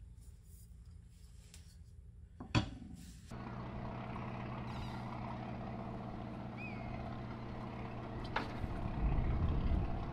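A sharp knock about two and a half seconds in, then a fishing boat's engine running steadily, with short high bird calls over it.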